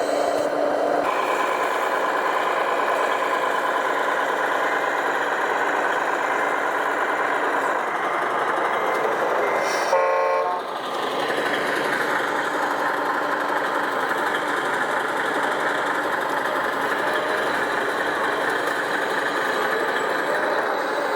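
Large RC truck running steadily with a continuous engine-like drone, and a short, loud pitched toot about ten seconds in.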